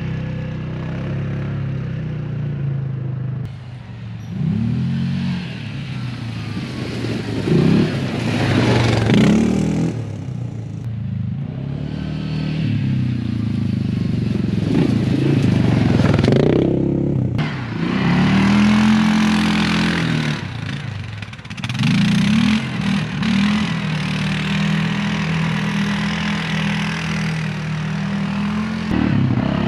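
2021 Yamaha Grizzly 700 ATV's single-cylinder engine running steadily, then revving up and down over and over as it accelerates along the trail, with a low rumble. It is heard mostly through a 2R Racing exhaust tip, with a stretch on the stock exhaust near the end.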